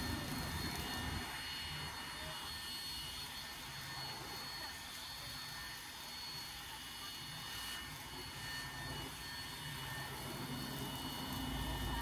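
Tefal X-Force Flex cordless stick vacuum running steadily with a high motor whine while its brush nozzle is drawn over sheer curtains.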